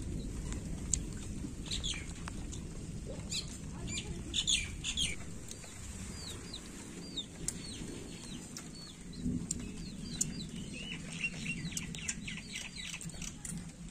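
Small birds chirping: scattered short, high chirps that slide downward, crowding into a quick run of chirps in the last few seconds, over a steady low rumble and a few sharp clicks.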